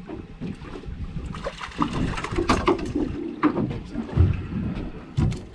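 Wind on the microphone and water against the hull of a small boat, with scattered sharp knocks and clicks of fishing gear as a fish is reeled in and a landing net is brought out.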